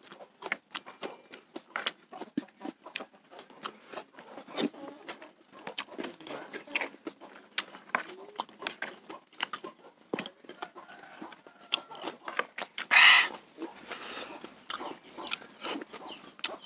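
Close-up eating sounds of a man eating meatball soup with noodles: wet chewing and slurping, with a spoon scraping in the bowl, in many short irregular clicks. One louder, harsher sound stands out about thirteen seconds in.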